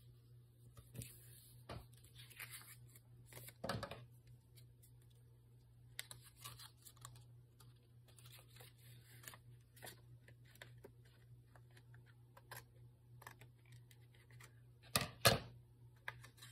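Paper and cardstock being handled: light rustling and scissors snipping card, with a louder crackle about four seconds in and two more close together near the end. A faint steady hum runs underneath.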